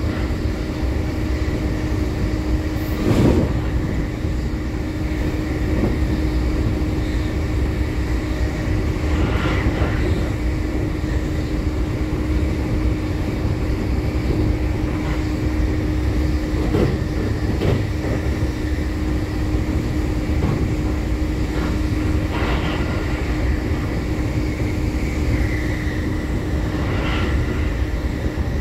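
Running noise heard inside an E531 series electric train's trailer car at speed: a steady rumble of wheels on rail with a steady hum. Now and then come sharp knocks from wheels and track, the loudest about three seconds in.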